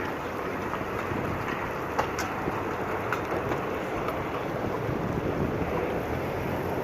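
Strong sandstorm wind blowing across the microphone, a steady rushing roar with a few faint ticks.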